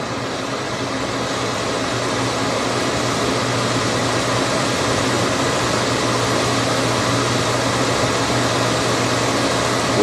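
Gas furnace draft inducer fan running steadily with a constant low hum, purging the heat exchanger after an ignition attempt that shut off because no flame signal was sensed.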